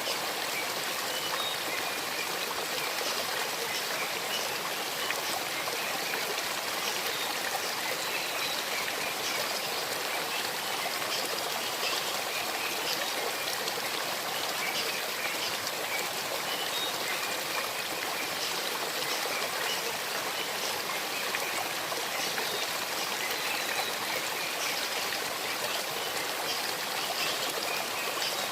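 Shallow stream babbling and trickling over river stones, a steady rushing flecked with small splashes and gurgles.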